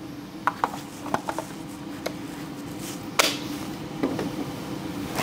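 Handling of a Ryobi 18V LED clamp light and its battery: a few light plastic clicks over the first two seconds, then one sharper click about three seconds in.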